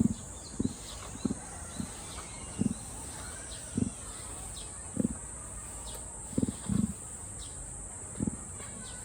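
Emu giving short, low, burp-like grunts, about ten of them at irregular intervals, each lasting a fraction of a second.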